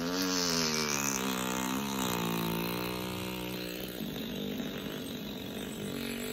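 A man blowing a long lip trill, a motorboat raspberry with the lips buzzing. It is one steady buzzing tone lasting about six seconds, wavering a little in pitch.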